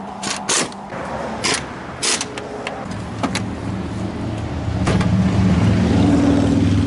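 Several sharp metal clicks and clanks of hand tools working on car door hinge bolts, then a steady low mechanical hum that swells in from about three seconds in and is loudest near the end.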